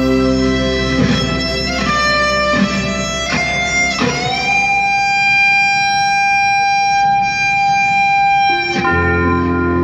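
Live rock band with an electric guitar lead. The guitar plays a short run of separate notes, then holds one long sustained note for about four seconds, and the band comes back in with a low chord near the end.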